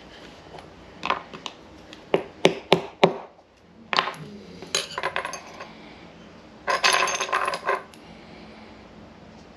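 Small metal hand tools clinking and knocking: a run of sharp separate clicks, then about a second of continuous rattling clatter near the end.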